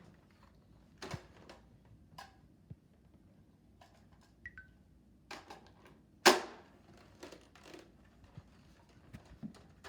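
Scattered plastic clicks and knocks of Nerf blasters being handled, about one every second or so, with one much louder knock about six seconds in.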